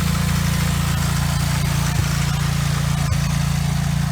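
Small garden tractor engine running steadily at an even speed, with a couple of light clicks about two and three seconds in.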